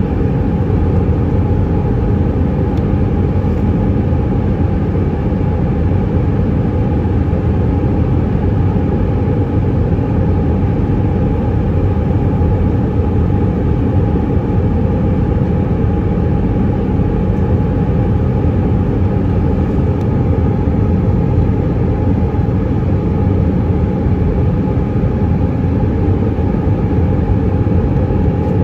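Steady cabin roar of an Airbus A319-132 descending on approach, heard from a window seat over the wing: a loud, even rumble of airflow and its IAE V2500 engines, with a steady hum over it and no change in level.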